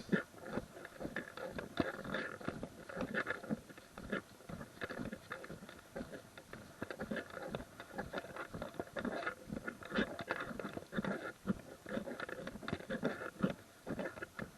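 Footsteps crunching on a gravel trail: a steady stream of short, irregular crunches while walking.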